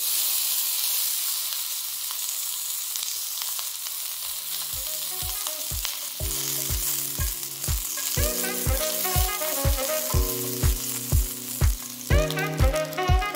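Beef fat trimmings sizzling in a hot cast iron pan as the fat renders. The sizzle starts abruptly, right as the pieces land. About four seconds in, background music with a steady beat comes in over it.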